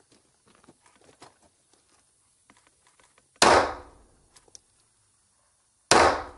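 Two pistol shots about two and a half seconds apart, each sharp and loud with a short fading tail. Faint clicks and rustling come before the first shot.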